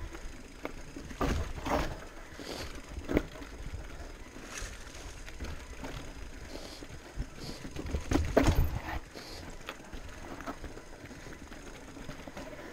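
Electric mountain bike rolling down a rough trail: a steady low rumble of tyres, with many sharp knocks and rattles of the bike over rocks and a heavier clatter about eight seconds in.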